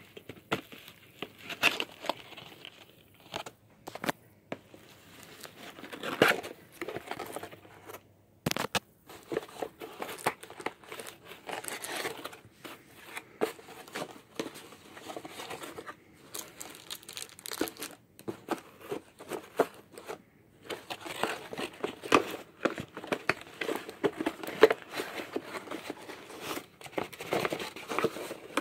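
Cardboard trading-card set box being handled and opened by hand: irregular rustling, crinkling and tearing of the packaging, with small taps and knocks as it is moved about.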